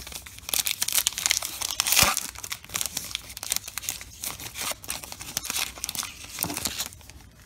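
Crinkly wrapper of a baseball card pack being torn open and crumpled by hand, with crackling that runs for several seconds, loudest about two seconds in, and dies away near the end.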